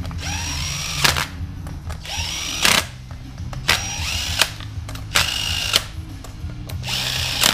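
Cordless drill-driver running down the bolts that hold the separator plate and gaskets on a GM 4L80E transmission. It goes in about five short bursts, each spinning up with a rising whine, holding a steady high tone and stopping with a sharp click. The bolts are run down hand tight, ready for final torque with a ratchet.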